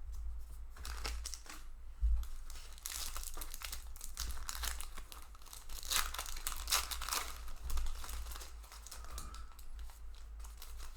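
Foil booster pack wrappers being torn open and crinkled by hand, an irregular crackling that goes on throughout, with a few sharper rips.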